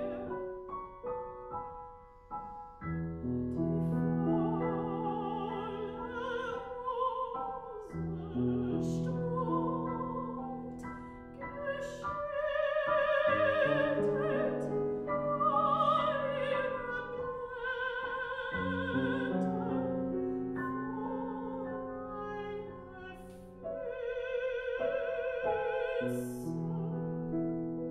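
Soprano singing a German art song with a wide vibrato, accompanied by a grand piano. The piano chords carry the opening few seconds before the voice comes in, and the voice swells loudest about halfway through.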